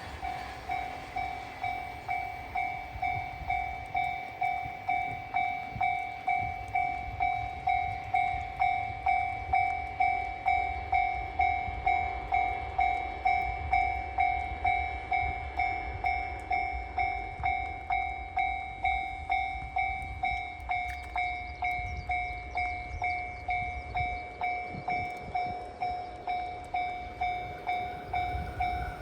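Japanese level-crossing warning bell ringing its steady 'kan-kan' dings, a little under two a second, over a low rumble.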